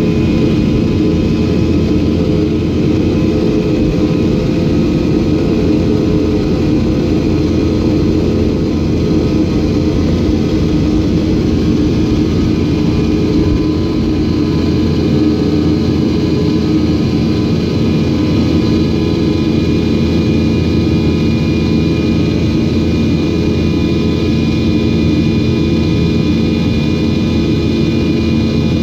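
Yak-42D's rear-mounted Lotarev D-36 turbofan running steadily in flight, heard in the cabin right beside the engine: a loud, harsh drone with several steady whining tones over it.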